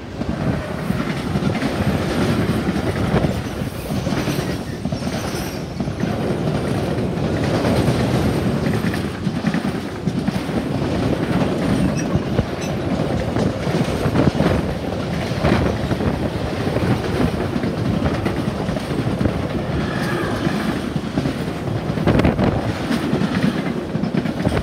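Mixed freight train rolling past close by behind a DB Cargo Siemens Vectron electric locomotive: a steady loud rumble of box and tank wagons, with the clickety-clack of wheels over rail joints.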